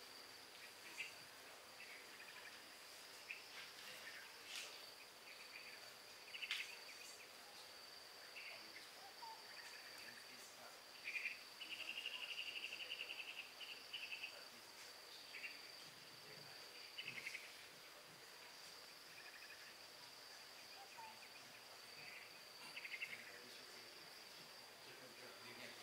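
Faint crickets and other insects: a steady high-pitched drone with scattered short chirps, and one longer buzzing trill around the middle.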